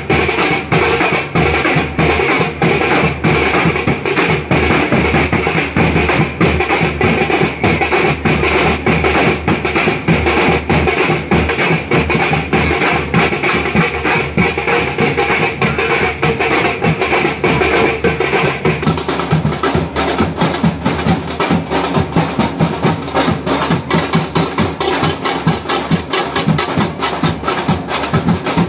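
Loud, fast drumming on dhol drums, a dense unbroken stream of strokes. A steady high sound rides over the drumming and drops away about two-thirds of the way through.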